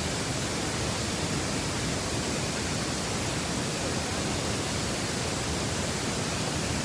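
Waterfall: falling water rushing steadily, an even hiss-like noise with no breaks.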